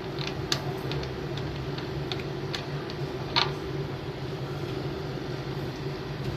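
Steady hum of a running air conditioner during a refrigerant pump-down, with scattered light metallic clicks and ticks; a sharper clink about three and a half seconds in.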